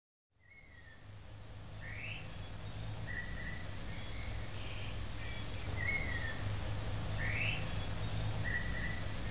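Background outro track fading in over the first two seconds: a steady low hum under short chirping whistles and rising glides, like birdsong, that repeat the same pattern about every five and a half seconds, as a loop does.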